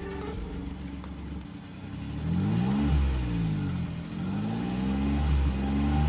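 Maruti Suzuki Alto 800's three-cylinder petrol engine revved a few times through its stock exhaust, the pitch rising and falling with each blip. Quieter for the first two seconds, then louder once the revving starts.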